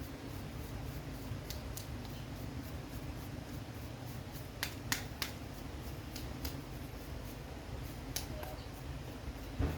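Scattered sharp clicks and taps, as of small parts and tools being handled during repair work, over a steady low hum.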